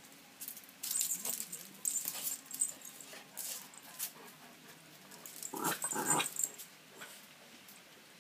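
Jack Russell Terrier puppy vocalising in a string of short bursts as it attacks a bug, loudest about six seconds in.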